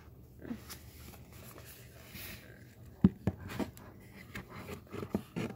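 A hardbound booklet being leafed through and handled: paper rustling, with a few sharp taps about three seconds in and again near the end.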